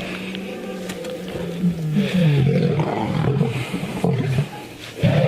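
Lions roaring in a fight: loud, rough, overlapping calls that rise and fall in pitch, with a short lull just before the end and a loud outburst as it closes.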